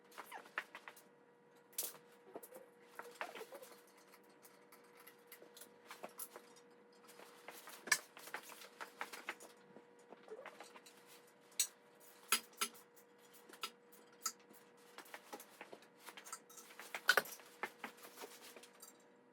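Scattered metallic clinks and taps of hand tools and engine parts being handled during engine reassembly, with a faint steady hum underneath.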